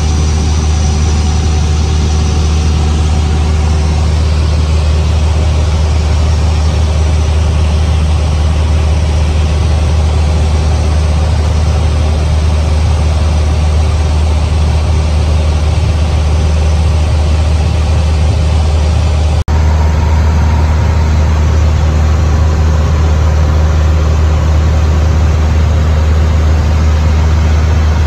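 Cessna 150's four-cylinder Continental O-200 engine and propeller droning steadily, a loud low hum heard from inside the cabin. The drone dips briefly once about 19 seconds in.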